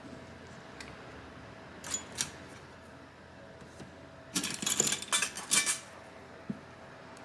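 Small metal repair tools clicking and clattering on the workbench: two light clicks, then a short burst of rapid metallic clinks about four and a half seconds in.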